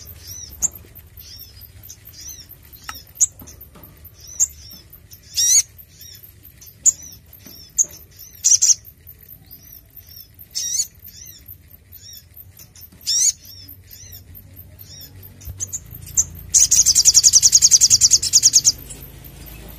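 Male olive-backed sunbird calling in short, high chirps and sharp sweeping notes, then breaking into a loud, fast trill of rapidly repeated notes for about two seconds near the end.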